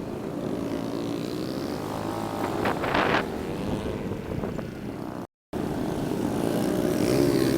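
Motorcycle engine running, with wind noise; the sound drops out for a moment about five seconds in, then the engine picks up again and rises a little near the end.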